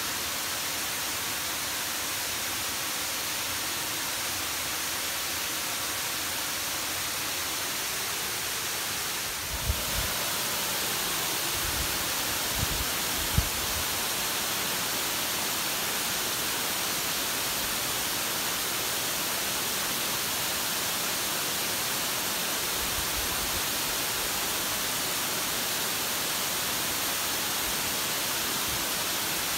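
Water pouring over an overflowing concrete dam spillway and cascading down rock steps into the pool: a steady, even rush of falling water. A few short low thumps come about a third of the way in.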